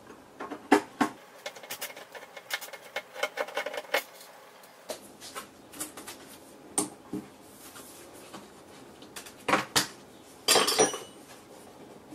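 Screwdriver turning out small screws from the steel back panel of an LCD monitor: a quick run of small metallic clicks and ticks in the first four seconds, then a few scattered clinks and knocks, with a louder metallic clatter about ten and a half seconds in.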